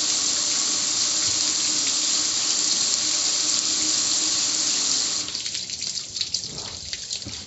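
Garden hose pouring a steady stream of water over a metal gas grill. About five seconds in the steady rush stops, leaving water dripping and spattering off the grill.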